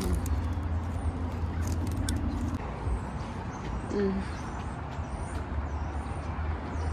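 Steady low outdoor rumble, with faint high chirps and a short low hoot-like sound about four seconds in.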